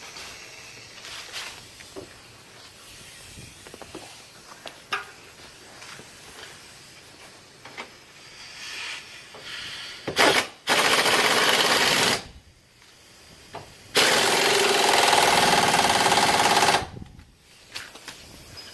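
Impact wrench hammering in two bursts, about two and then three seconds long, working the bolts of a car's rear lower control arm. Light tool clicks and clinks come before them.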